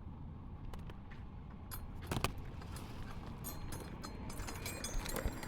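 A roofing shingle being handled: scattered scrapes and small clicks, a sharper knock about two seconds in, and busier crinkly clicking near the end. A steady low rumble lies underneath.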